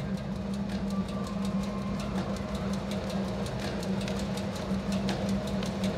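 A steady low hum under fast, even clicking, about five or six clicks a second: a rhythmic mechanical-sounding clatter.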